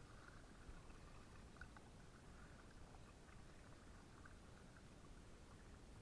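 Near silence, with faint water lapping and trickling against a kayak, small splashy ticks scattered through it.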